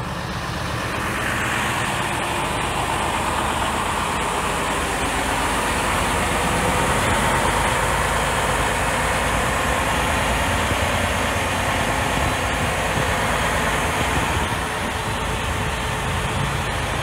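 Semi truck's diesel engine idling steadily, charging a dead truck's batteries through jumper cables.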